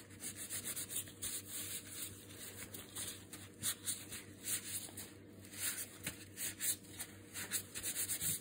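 Nitrile-gloved hands rubbing and wiping against each other, a soft, uneven swishing of glove on glove as rubbing alcohol is spread over the gloves to sterilize them.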